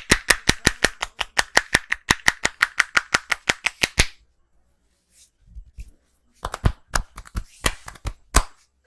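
A barber's hands striking in quick rhythmic percussive massage (tapotement), about eight slaps a second for some four seconds. After a pause of about two seconds comes a shorter, uneven run of strikes.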